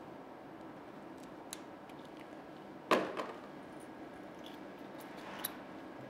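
Plastic tubing and fittings being handled: a few light clicks and one louder click about three seconds in, over faint room hiss.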